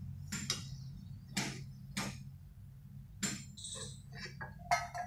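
Slotted steel spoon knocking and scraping against the kadhai as fried puris are lifted out of the hot oil: about six sharp clinks spread over the few seconds, the last ones ringing briefly. A steady low hum runs underneath.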